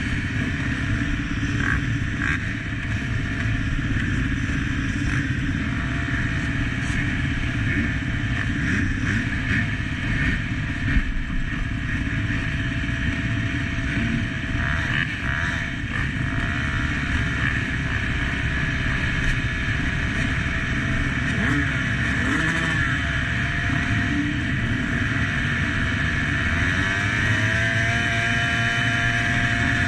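Motocross bike engines running at the start gate, the nearest a KTM SX 150 single-cylinder two-stroke, held at steady revs with a few rises and falls in pitch in the second half.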